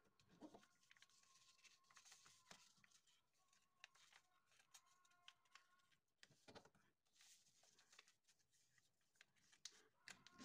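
Faint rustling and creasing of a sheet of paper as it is folded by hand, with soft brushing swipes and small scattered ticks of fingers pressing the folds flat.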